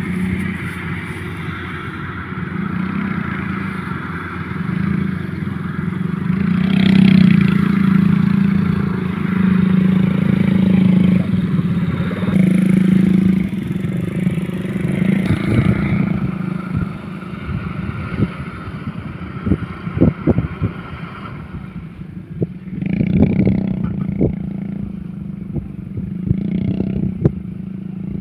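Motorcycle engine running under way, its hum rising and falling with the throttle, with sharp clattering knocks in the second half.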